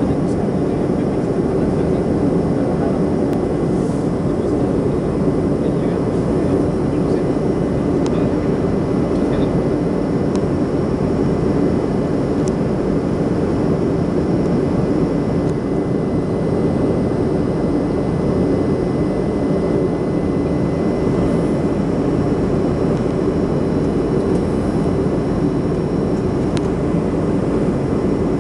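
Steady low noise of an airplane in flight heard from inside the cabin, engines and rushing air blended into one even roar, with a faint steady high tone above it.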